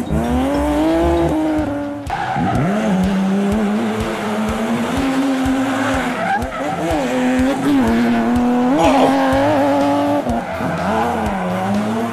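Race-car engine sound effect revving up and down in pitch, with skidding tire squeals.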